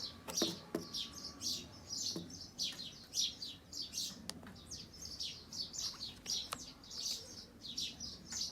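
Bird chirping: short, high, falling chirps repeating quickly, two or three a second, with a few faint clicks in between.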